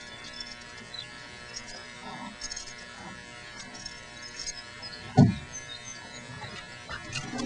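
A steady electric buzz, with faint scattered clicks and a single dull thump about five seconds in.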